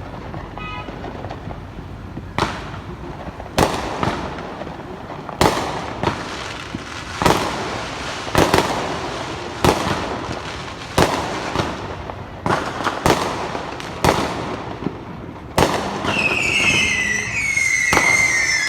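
Firecrackers exploding in a series of loud, sharp bangs, roughly one every second or so, over a background of distant crackling. Near the end, several high whistling tones glide downward.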